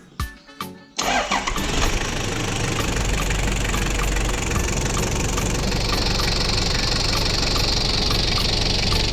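Toyota 1KZ four-cylinder turbodiesel in a 70-series Land Cruiser Prado starting about a second in and then running steadily at idle.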